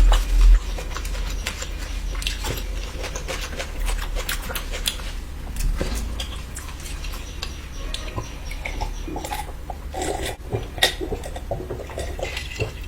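Close-miked chewing of food, with many short irregular mouth clicks, and a low rumble in the first half second.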